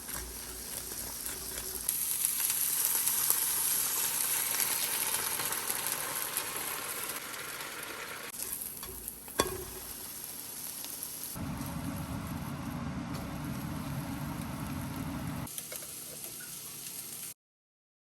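Food sizzling as it fries in a pan, a steady hiss that is loudest in the first half. Around the middle there is a sharp knock, and a low rumble joins the hiss for about four seconds before the sound cuts off abruptly.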